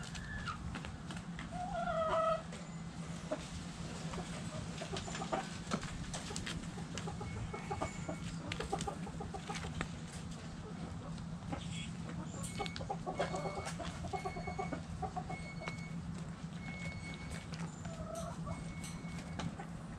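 Backyard hens clucking in a coop, with one louder call about two seconds in and scattered clucks after it. A short high peep repeats about once a second through the second half, over a steady low hum.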